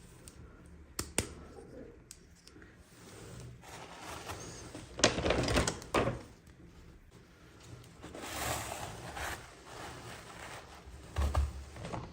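Hands unwrapping and handling small plastic toy packaging: scattered clicks and taps with bursts of rustling and crinkling. The loudest rustle comes about five seconds in, and there are knocks and rustles near the end.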